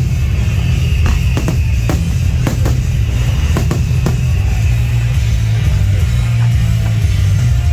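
Loud rock music of the fireworks show soundtrack, over which firework shells burst with a string of sharp cracks through the first four seconds or so, growing sparser later.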